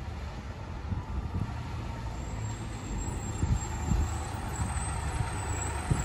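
Diesel engine of a 2002 Blue Bird International 3800 school bus running as the bus approaches, a steady low rumble.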